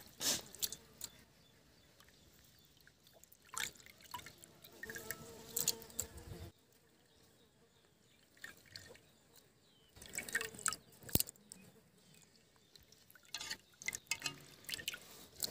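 Hands washing meat in a metal pan of water: sloshing, squeezing and water dripping and trickling back into the pan, in several short bursts with quiet gaps between, and one sharp tick about eleven seconds in.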